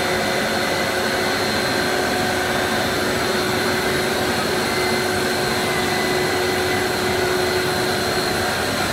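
Steady machine noise of a running PVC sheet extrusion line: a constant hiss with several steady whining tones from its motors and fans.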